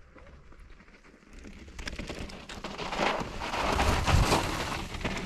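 Mountain bike tyres crunching and sliding over loose dirt and gravel as a rider comes down the slope and passes close. The sound grows louder to a peak about four seconds in, then eases off.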